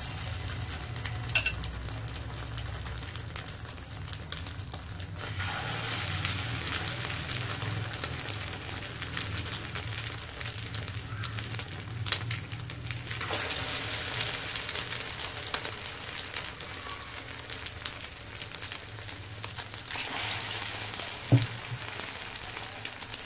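Egg-coated paneer and potato cutlets shallow-frying in hot oil in a non-stick pan, a steady sizzle. The sizzle swells a few times as more cutlets go into the oil, with a couple of light knocks.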